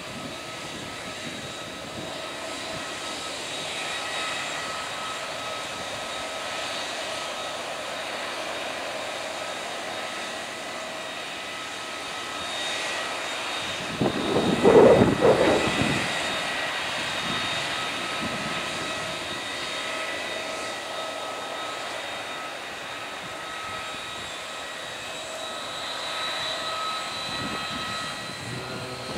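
Airbus A320neo's CFM LEAP-1A turbofan engines running at idle: a steady whine made of several held tones. About halfway through there is a brief, louder rush of noise.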